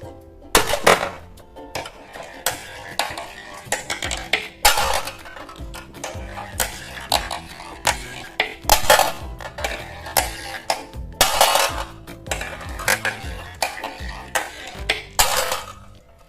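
Marbles clattering and rolling on a plastic marble-run track: a stream of irregular hard clicks and clacks, with several longer rattling runs of about half a second.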